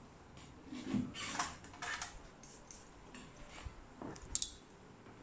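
Handling noise at a repair bench: light clatter about a second in, then two sharp clicks near the end.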